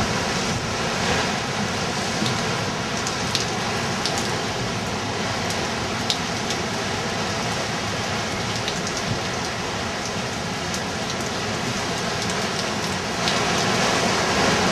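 Hurricane Ike's wind-driven rain pouring down, a steady hiss with scattered sharp drop ticks, swelling a little near the end.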